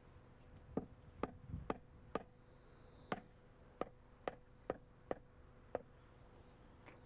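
The wooden handle of a hand tool knocking on a concrete paving slab about ten times, tapping the slab down into its bed of dry laying mix. The knocks are sharp and unevenly spaced, and stop a little before the end.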